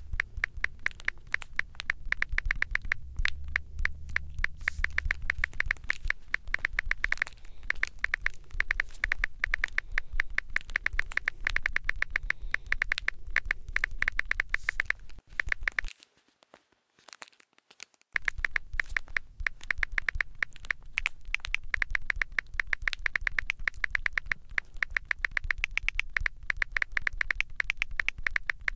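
A fast, steady run of sharp clicks, many to the second, breaking off for about two seconds around the middle and then resuming.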